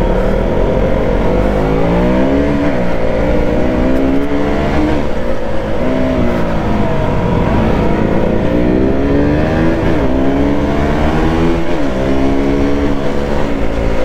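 Motorcycle engine, the single-cylinder of a KTM RC ridden at speed: it climbs in pitch under throttle and drops back several times as the rider accelerates and rolls off. Steady wind and road noise run underneath.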